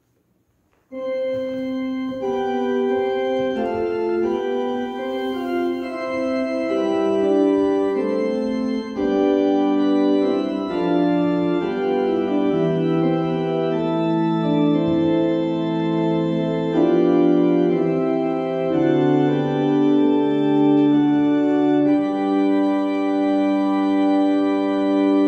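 Organ playing slow sustained chords that change every second or so, starting about a second in.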